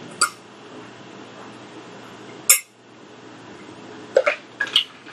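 A person gulping a drink from a plastic cup close to the microphone. There is a sharp swallow about two and a half seconds in, then a quick run of swallows near the end, over a faint steady hum.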